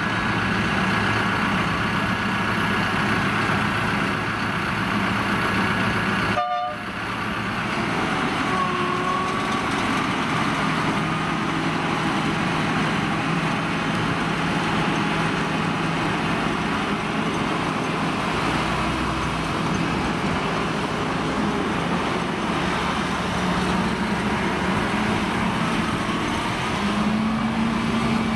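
Diesel engine of a UNAC 300RR² road-rail brush-cutting machine running steadily, with a brief drop about six seconds in. Near the end a road truck's engine joins it.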